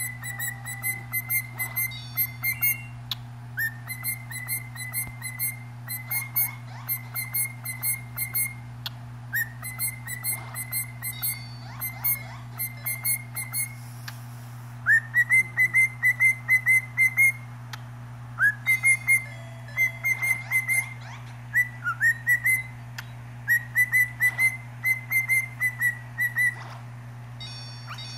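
Cockatiel whistling rapid runs of short, bright notes, in phrases of two or three seconds broken by short pauses. Some phrases open with a quick upward swoop.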